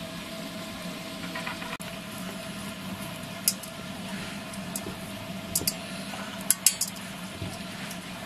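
Wet squishing and a handful of sharp metallic clicks in the second half as a marinated raw fish is pushed onto the wire hooks of a metal tandoor hanging rack, over a steady hum.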